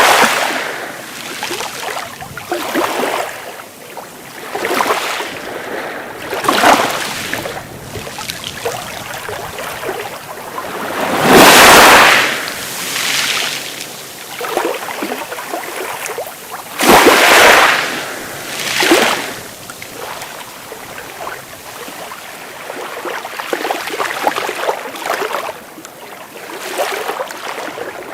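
Sea waves washing in and breaking in repeated surges of noisy hiss, the two largest a little before and a little after the middle.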